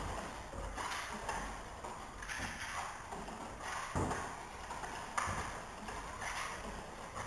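Metal balloon whisk beating pancake batter in a plastic mixing bowl: fast repeated swishing strokes, the wires tapping the bowl, with a sharper knock about four seconds in and again just after five. The melted butter is being whisked into the batter.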